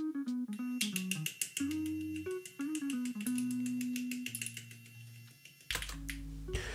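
Background music: a plucked guitar melody of held, stepping notes.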